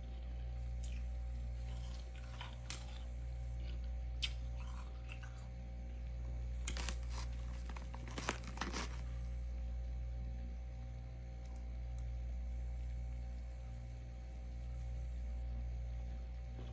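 Freezer frost crunching as a hand digs into it: a short run of crisp crunches about seven to nine seconds in, after a few single clicks, over a steady low hum.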